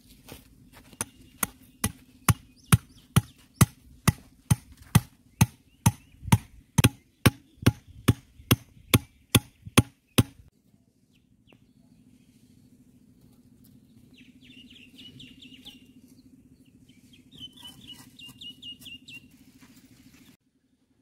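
Hand-held blows driving a stake into the soil: sharp knocks at about two a second for some ten seconds, then they stop. After that a bird chirps in two short, rapid runs of high notes.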